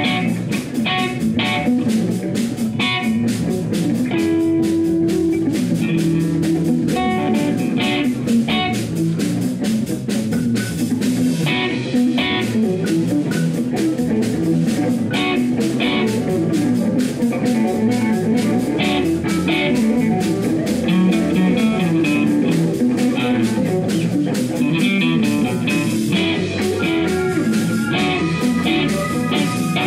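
Live blues band playing an instrumental passage: electric guitar and electric bass over a steady drum-kit beat.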